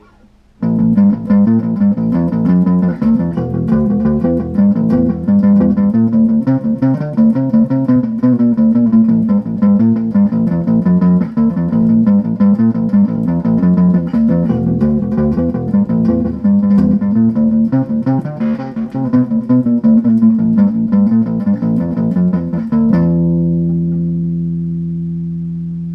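Unaccompanied electric guitar playing a fast riff of plucked notes with no backing track. Near the end it stops on one held note that rings out and slowly fades.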